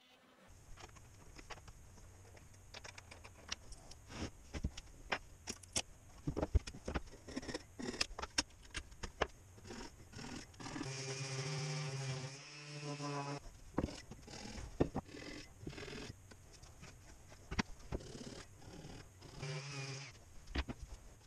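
Sped-up workshop handling of plywood parts: many quick knocks and clicks as the pieces are moved and fitted together. A machine with a steady pitched hum runs for about two seconds near the middle, and a handheld orbital sander runs briefly near the end.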